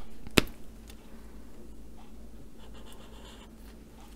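Arteza Everblend alcohol marker nib rubbing back and forth on paper as a colour swatch is filled in, a faint scratchy sound. A single sharp click comes about half a second in.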